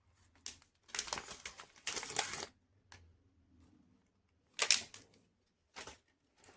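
Several short bursts of quick clicking and rustling. The loudest is a sharp burst about two-thirds of the way through, with a smaller one shortly after.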